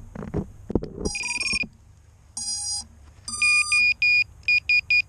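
Electronic beeps from FPV drone gear: a short stepped tone sequence, then a run of loud, high-pitched beeps, the last five short and quick, like the start-up and arming tones of a quadcopter or its radio. A few handling knocks come first.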